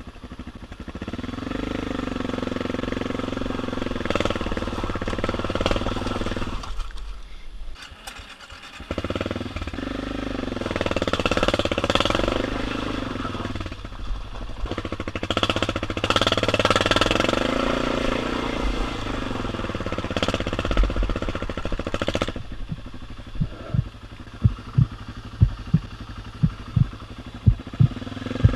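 BMW F650GS motorcycle engine under varying throttle on a rough dirt track, its pitch rising and falling over and over, easing off briefly about a quarter of the way in. Near the end a series of sharp knocks, about one or two a second, comes over the engine.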